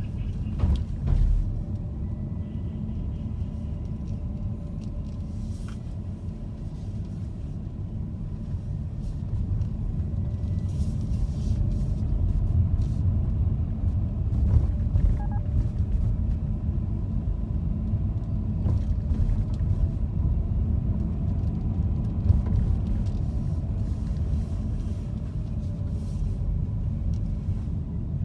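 Car cabin noise while driving: a steady low rumble of engine and tyres on the road, with a brief thump about a second in and a few faint clicks.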